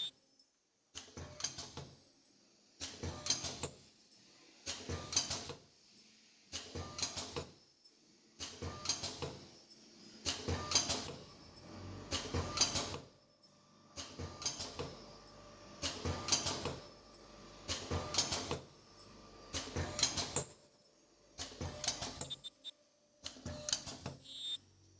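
YFM-121ICA automatic ultrasonic invisible-zipper bottom-stop welding machine running its production cycle. It makes a burst of mechanical clatter about every two seconds, one for each zipper fed, hooked, pressed and welded.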